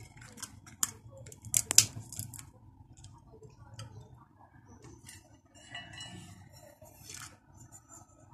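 Hands handling dried fish and lotus seeds in a water-filled ceramic stew pot: a string of small clicks and knocks against the ceramic, sharpest a little under two seconds in, with fainter clinks later.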